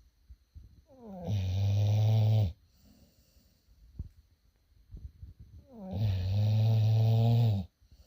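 Pit bull snoring: two long, low snores about five seconds apart. Each drops in pitch as it starts, then holds steady for a second or more before cutting off.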